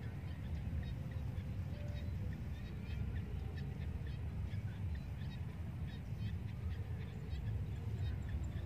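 Wind buffeting the microphone with a steady low rumble, over faint, scattered short high chirps.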